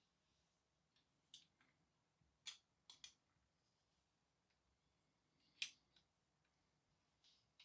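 Scattered small sharp clicks and taps of small model-car parts being handled and fitted, about half a dozen, the loudest about two and a half and five and a half seconds in.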